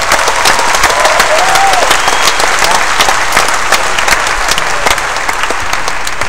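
Audience applauding, with a couple of whistles in the first two seconds; the clapping thins a little near the end.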